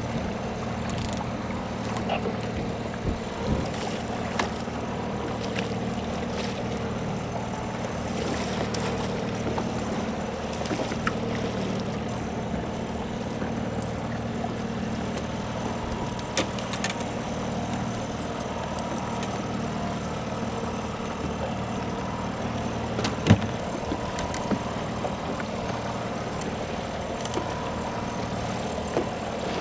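Outboard motor running steadily at trolling speed, with wind and water noise. Scattered sharp clicks and knocks sound on the boat, the loudest about 23 seconds in.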